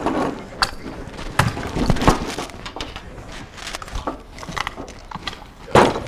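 A bunch of padlocks being handled and picked on a table: scattered light metallic clicks and clinks, with one louder knock near the end.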